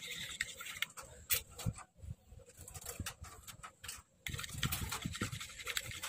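Metal spoon stirring and scraping a wet mash of soaked bird-feed pellets in a small plastic cup: irregular light scrapes and clicks, quieter through the middle and louder over the last couple of seconds.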